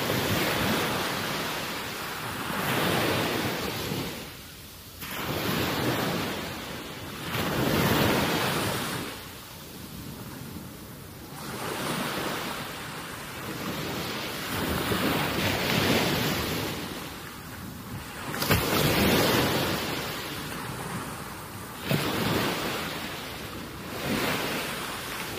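Wash of wind and small waves at a rocky shoreline: a noisy rush that swells and fades every two to three seconds, with some wind buffeting on the microphone.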